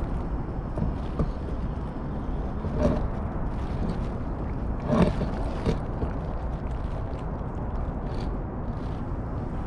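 A cat eating wet food from a stainless steel plate, with a few sharp clicks and scrapes of its teeth and tongue against the metal, the loudest about five seconds in. A steady low rumble runs underneath.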